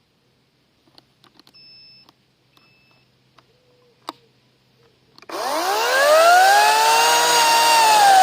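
Handling clicks and two short high beeps, then about five seconds in the Parkside PKSA 40-Li B2 40V cordless chainsaw's electric motor spins up with a fast-rising whine and runs steadily at full speed.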